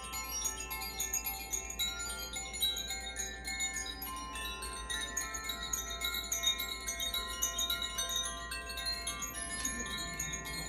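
Makino-style Advance Chimes being played: many tuned metal chimes struck again and again, their ringing notes overlapping into a continuous shimmer, with a steady low hum underneath.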